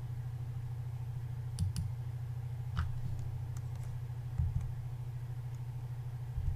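A few sharp clicks from operating the computer: a quick pair about one and a half seconds in, then two single clicks spaced out. A steady low electrical hum runs underneath.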